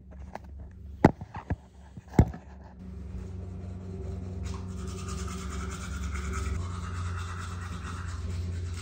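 A few sharp knocks as the toothbrush is handled, then, about three seconds in, an electric toothbrush starts buzzing steadily while brushing the teeth, muffled in the mouth.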